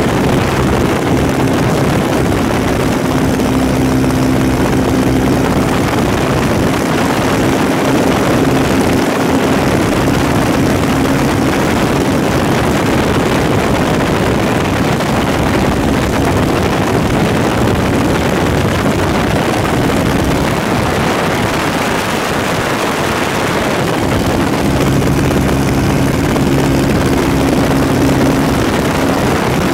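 A light high-wing aircraft's propeller engine droning steadily in cruise, buried in heavy wind rush through the open door and window. The engine's tone sinks under the wind for a while in the middle and comes back clearly near the end.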